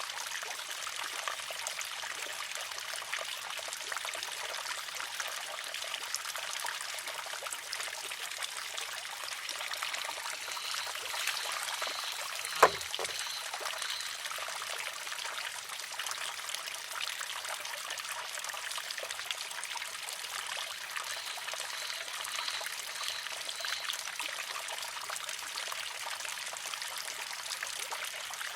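Water trickling steadily into and out of a wooden shishi-odoshi. About halfway through, one sharp wooden clack rings out as the water-filled arm tips over and strikes the rock.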